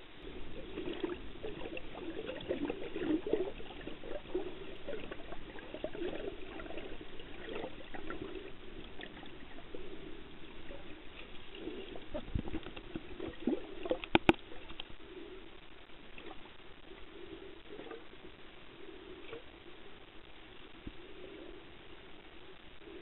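Muffled underwater water noise from a submerged camera, sloshing and bubbling, with scattered small clicks and a sharp double click about 14 seconds in. It grows somewhat fainter in the second half.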